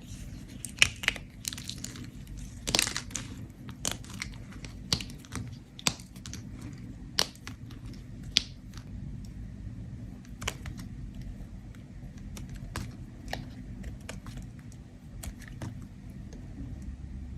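A bar of soap being scraped with a blade: crisp, crackly scrapes and crumbling shavings in irregular strokes. The strokes are denser and louder in the first few seconds and sparser after that.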